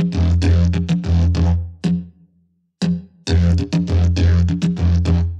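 Didgeridoo played in rhythmic phrases: a low, steady drone with sharp accented pulses. It stops for about half a second just after two seconds in, then resumes.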